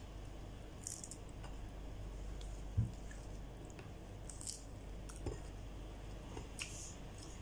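Close-up eating sounds of raw arugula (gargeer) leaves being folded by hand and chewed: soft wet mouth sounds and a few short crisp sounds, with a soft thump about three seconds in, over a steady low hum.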